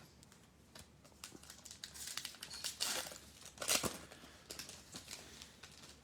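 A trading card pack's wrapper being crinkled and torn open, with two louder rips about three and four seconds in.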